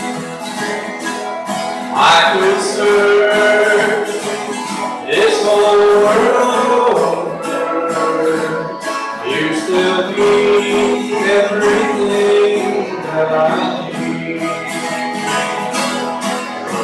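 Two acoustic guitars playing an instrumental break in a country song: a picked lead melody over strummed rhythm chords, carried through a PA system.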